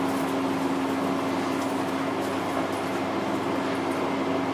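Steady mechanical background hum with one constant low tone running through it, unchanging throughout: room tone with no speech.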